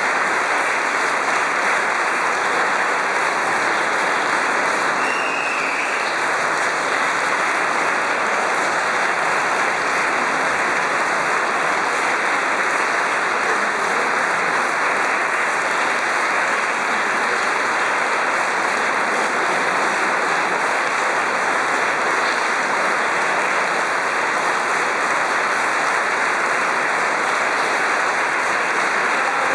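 Audience applauding steadily, a long unbroken stretch of clapping.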